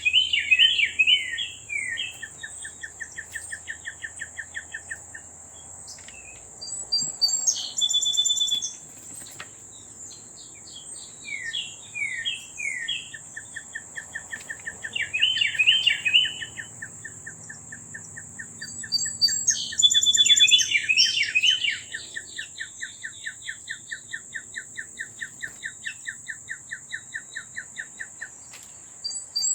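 Wild songbirds at a feeder. One bird sings the same song three times: a few quick down-slurred notes, then a long even trill lasting several seconds. Other birds add short high chirps, over a steady high-pitched insect-like drone.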